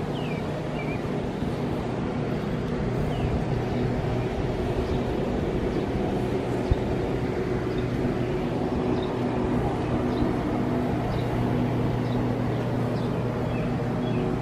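Steady low machine hum with a few even tones, over a rumbling handling noise. Faint short high chirps come now and then, and there is one brief knock about seven seconds in.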